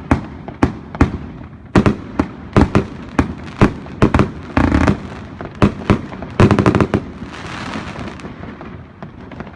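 Evolution Snowstorm 2.0 firework going off: a string of sharp bangs, about two to three a second, with a quick volley of shots past the middle. A spell of crackling follows, then it dies down.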